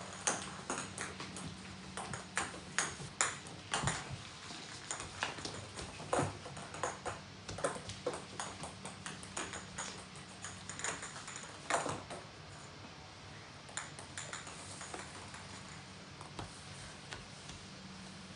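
A small ball batted about by a Norwegian Forest Cat on a wooden floor: many quick, irregular light clicks and taps as it is hit and skitters, with paws pattering after it. The taps come thick and fast for about twelve seconds, then thin out.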